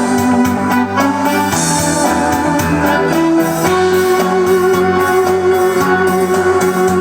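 Music: keyboard playing held organ-like chords along with a MIDI backing track from a Roland E-500 floppy disk sequencer.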